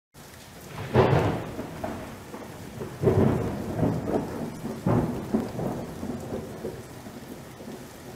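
Thunderstorm: steady rain with three rolls of thunder, the loudest about a second in, the others about three and five seconds in.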